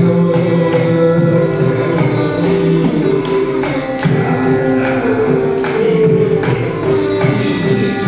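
Carnatic music: violin playing a held, gliding melody over steady mridangam strokes.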